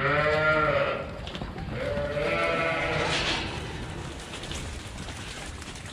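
Sheep bleating in a pen as a sheepdog works them: two bleats, the first at the very start and a longer one about two seconds in.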